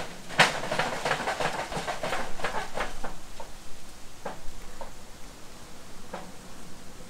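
Dry fallen leaves crackling and rustling as a long-tailed macaque rummages through them with its hand. A dense run of crackles comes in the first few seconds, then a few single crackles.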